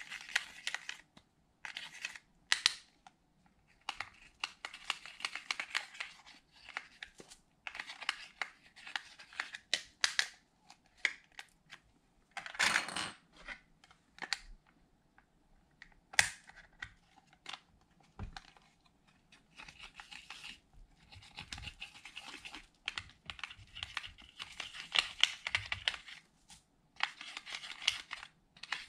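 A plastic spatula scraping pressed eyeshadow out of the pans of a makeup palette, in repeated short bouts of scratchy scraping with brief pauses. There is a louder scrape near the middle and a sharp click a few seconds later.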